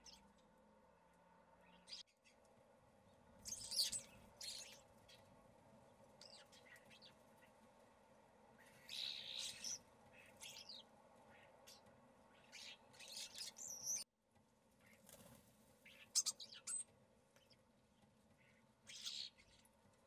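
Common starlings calling in short, scattered bursts of high calls, about half a dozen times, over a faint steady hum.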